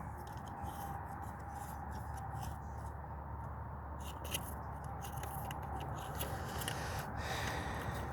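Light rubbing and scraping with scattered small clicks, the sound of hands handling parts, over a steady low hum.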